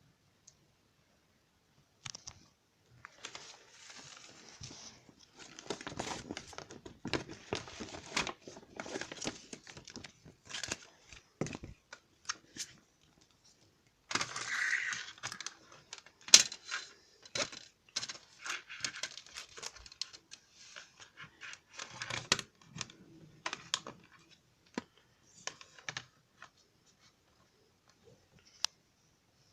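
A CD album's packaging being handled: irregular crinkling and rustling with sharp plastic clicks, thinning out to a few scattered clicks near the end.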